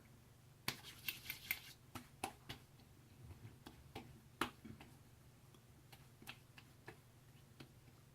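Faint, scattered small clicks and taps from handling aftershave wax: a quick cluster about a second in, then sparser ones.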